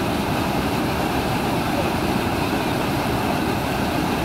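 Floodwater rushing and churning through the openings of a concrete sluice gate: a loud, steady rush of turbulent water.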